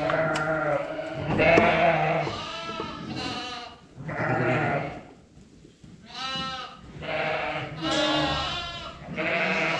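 Several sheep bleating over and over, about eight calls in a row, each lasting around half a second to a second, with a short pause about halfway through.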